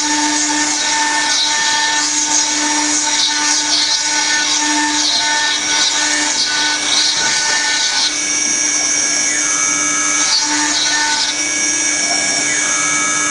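CNC router spindle engraving marble: a steady machine whine over the hiss and grind of the bit cutting stone. The cutting noise shifts as the work goes on.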